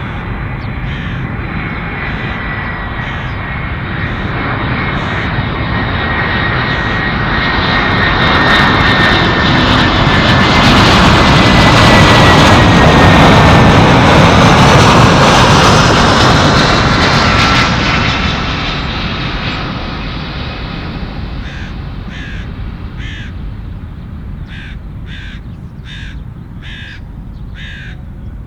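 Jet airliner passing close by: its engine noise builds, peaks about halfway through and fades, with a high whine that slides down in pitch as it goes past. Near the end a series of short, sharp calls repeats about twice a second.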